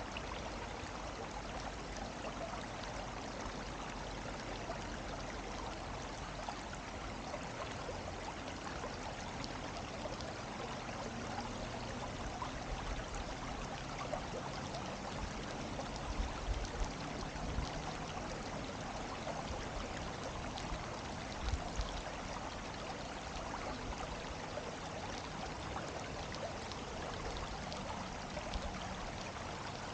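Steady rushing of a flowing stream, an even hiss with no tones in it. A few brief low thuds come about halfway through and again a few seconds later.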